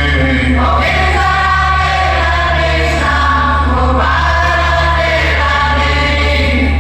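A vocal song played loud through a large outdoor loudspeaker sound system, with sung lines over a steady deep bass underneath.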